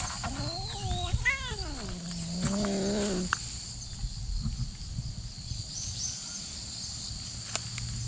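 Angry cat yowling: a wavering, pitched call that slides down and settles into a low, drawn-out growl, stopping about three seconds in.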